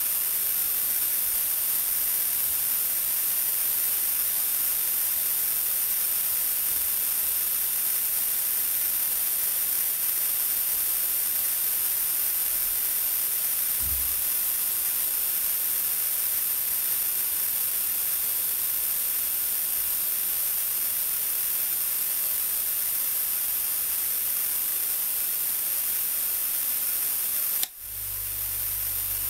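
Compressed air hissing steadily out of the airbrush compressor's tank through an open valve, draining the pressure. Near the end a sharp click sounds, the hiss drops, and a low steady hum begins: the refrigerator compressor starting as the pressure switch cuts in.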